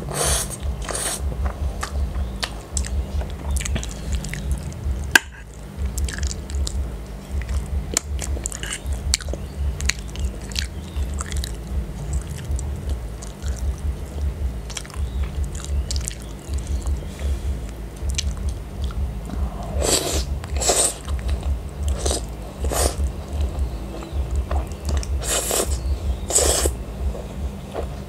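Close-miked chewing of spaghetti in tomato sauce with sausage, wet mouth sounds and small clicks throughout. Noodles are slurped in short loud bursts at the start, twice about two-thirds of the way through, and twice more near the end.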